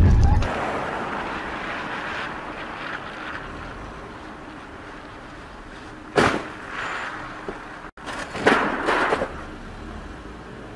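Car collision: a sharp crash impact about six seconds in, then a second, clattering burst of impacts about two seconds later, over a faint steady hiss. Loud low road noise cuts off just after the start.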